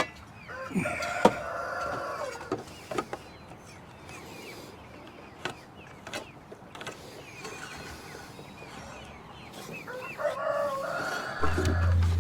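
Rooster crowing twice, once starting about half a second in and again near the end, with a few sharp knocks in between.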